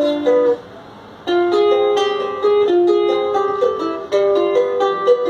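Jarana segunda, a small son jarocho guitar, being played with strummed chords and plucked melody notes. It stops for under a second about half a second in, then the playing resumes.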